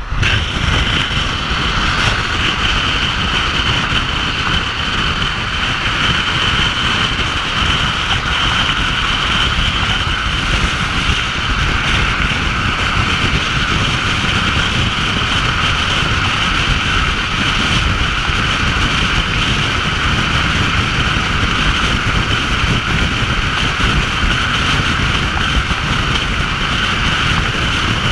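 Wind buffeting a camera mounted low on the outside of a car and tyre roar on the concrete freeway at cruising speed: a loud, steady rush over a low rumble, with a constant whine above it.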